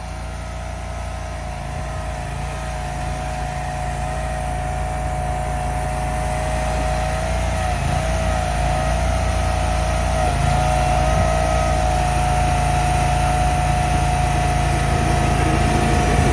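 Engine of heavy machinery running steadily with a low rumble and a held whine, growing gradually louder. The whine dips briefly twice.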